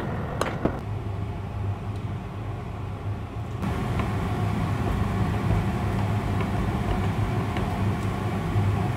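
Steady low machine-like hum, with two sharp metallic clinks about half a second in.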